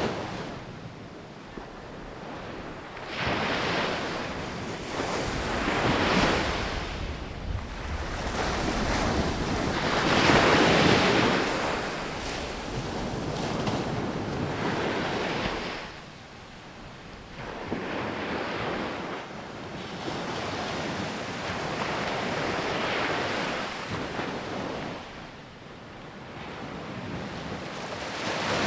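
Ocean waves breaking on a sandy beach, swell after swell every few seconds, each crash rising and washing out, the loudest about a third of the way in. A light rumble of wind on the microphone runs beneath.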